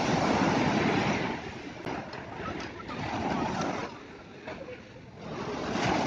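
Small waves breaking on a sandy beach, the surf swelling and ebbing: loud in the first second, again about three seconds in, dropping away after that and rising again near the end.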